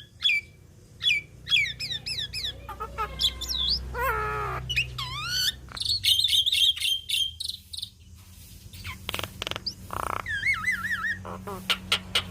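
Javan myna singing a varied, busy song: sharp clicks, swooping whistles, rough chattering notes, and a wavering whistle about ten seconds in.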